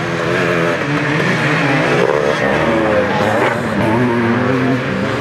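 Several vintage motocross bike engines revving through a corner, their pitch rising and falling as the throttles open and close.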